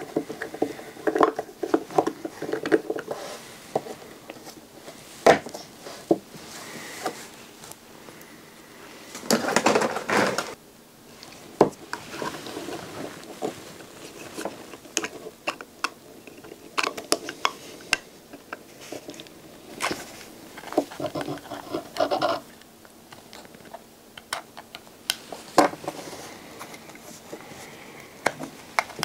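Handling noise from a satellite LNB being taken apart by hand: its plastic cap and metal housing click, knock and scrape against a small screwdriver and the table. There are scattered sharp clicks throughout and a few denser bursts of scraping and rattling.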